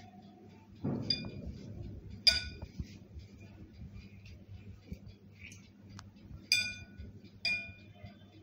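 Glass mixing bowl clinking as it is knocked while hands scoop dough from it: a dull knock about a second in, then three sharp ringing clinks, the first the loudest.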